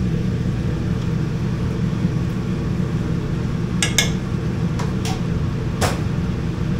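Steady low hum of the supply vessel's machinery in the galley, with a few sharp clinks of cookware about four to six seconds in.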